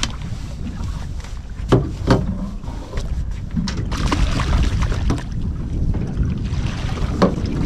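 Wind rumbling on the microphone aboard a small drifting fishing boat, with a few sharp knocks on the boat: two close together about two seconds in and one near the end.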